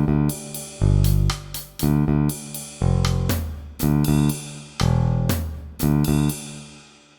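Background music: a slow line of plucked guitar notes over deep bass, about one note a second, fading out near the end.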